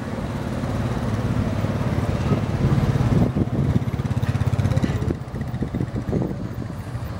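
Bombardier Flexity 2 tram approaching at low speed: a low steady electric hum that grows louder, then eases off about five seconds in.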